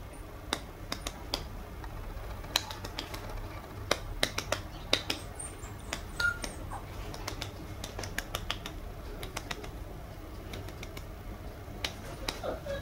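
Irregular sharp clicks and taps, with a short, high sliding whimper from a toy poodle puppy near the end.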